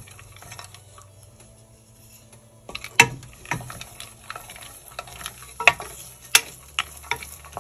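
Cashews, raisins and almonds frying in ghee in a stainless steel pressure cooker, with a light sizzle, while a wooden spatula stirs them. The spatula scrapes and knocks against the steel pot several times, the sharpest knock about three seconds in.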